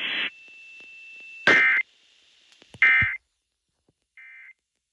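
Emergency Alert System end-of-message signal: three short buzzy digital data bursts about a second and a quarter apart, the third much fainter. It marks the end of the warning broadcast. Radio hiss cuts off just before.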